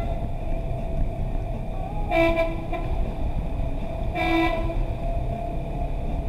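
A horn gives two blasts about two seconds apart, the first a little longer, over steady vehicle noise.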